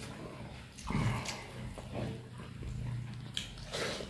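Close-up eating sounds of a man chewing a mouthful of rice, with a low nasal hum held for about two and a half seconds from about a second in, and a couple of sharp wet mouth smacks near the end.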